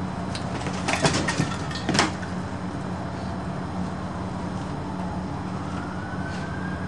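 A few sharp knocks and clicks in the first two seconds over a steady low hum; in the second half a distant siren begins, its wail rising slowly in pitch.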